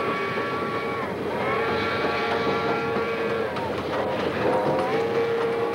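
Steam-locomotive train whistle blowing long, steady blasts, each sliding up at its start and down at its end. One blast ends about a second in, a second runs to past the middle, and a third starts late and is still sounding at the end. Under them is the steady rumble of the train running on the track.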